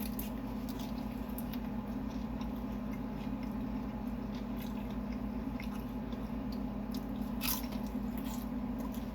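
A person chewing Chinese takeout close to the microphone, with small wet mouth clicks and smacks, one a little louder about seven and a half seconds in, over a steady low hum.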